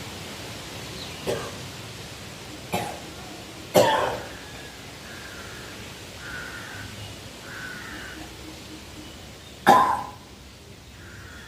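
A man coughing and hawking in four short, sudden bursts, the loudest about four seconds in and near the end. A thin rubber catheter passed through the nose into the mouth (sutra neti) is bringing up phlegm.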